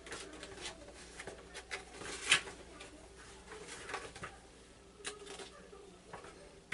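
Hands handling the box's contents and paper booklets: scattered light rustles, taps and small clicks, the loudest about two seconds in.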